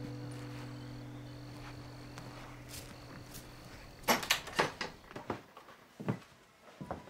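A sustained acoustic guitar chord fades away over the first four seconds. From about four seconds in come footsteps and a series of sharp clicks and knocks.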